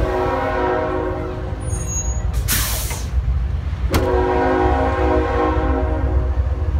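Locomotive horn at a railroad crossing sounding two long blasts, each a chord of several steady notes, with a short burst of hiss between them and a low rumble underneath.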